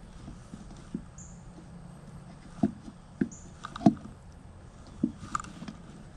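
Foam air filter being pushed and twisted into an ATV's plastic airbox: scattered knocks and thumps with rubbing in between, the loudest thumps a little past the middle, plus a few brief high squeaks.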